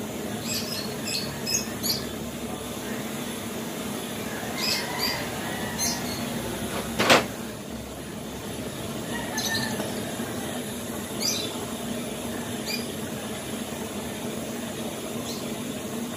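Gas torch flame hissing steadily as it heats a relined brake shoe, with short high squeaks now and then and one sharp knock about halfway through.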